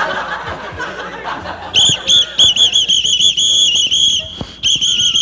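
A pea whistle blown in a run of short, trilling blasts, starting a little under two seconds in, with one brief break about four seconds in.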